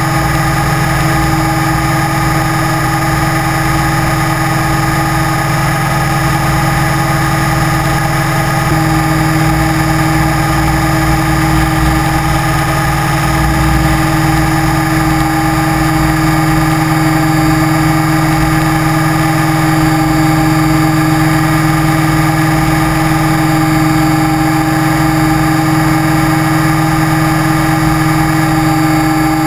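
Electric motor of an FPV model aircraft running at a steady throttle: a constant whine with a hiss over it. The pitch steps up slightly about nine seconds in.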